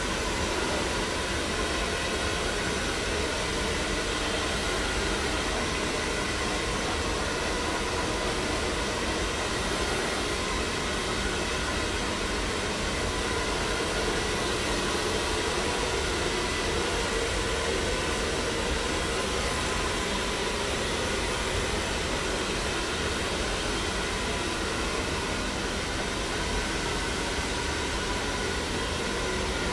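Handheld hair dryer running steadily on a rough dry of short hair: an even rush of air with a faint steady motor whine.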